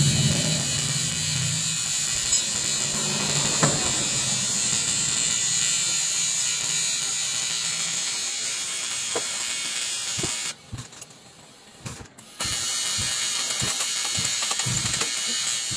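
TIG welder arc buzzing steadily while aluminium is welded with filler rod, repairing a torn diesel fuel tank. The arc stops for about two seconds past the middle, then strikes again.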